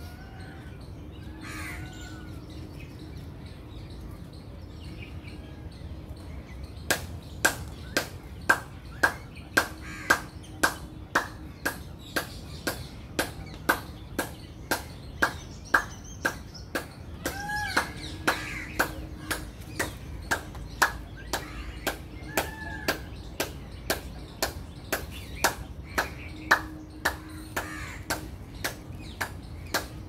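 Indian palm squirrel's chipping call: a regular series of sharp chips, about one and a half a second, starting about seven seconds in and keeping on, with a few short chirps among them.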